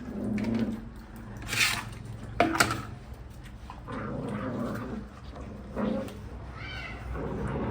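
Puppies growling low, with two short, sharp squeals and a pitched whine that rises and falls near the end.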